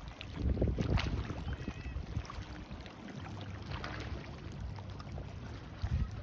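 Wind buffeting the microphone over waves washing on the shore, with a motorboat running steadily in the distance, clearest from about halfway in.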